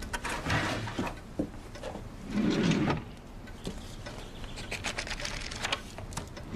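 Handling noises: light knocks and clicks, with a louder scraping rustle lasting about a second, starting about two seconds in.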